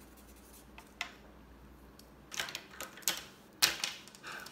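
Scattered clicks and short scratchy rustles of a marker and paper being handled on a desk, the sharpest a single tap a little before the end.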